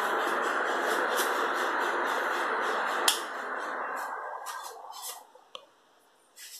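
Ventisol Wind Light ceiling fan running with a steady rushing noise. A sharp click comes about three seconds in, and the noise then dies away over a couple of seconds to near quiet, with a few faint clicks.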